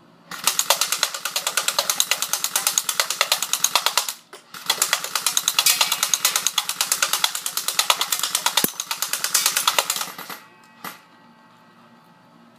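Battery-powered airsoft Thompson submachine gun firing on full auto: two long bursts of rapid shots with a short break about four seconds in, then a single shot near the end. The battery is not fully charged.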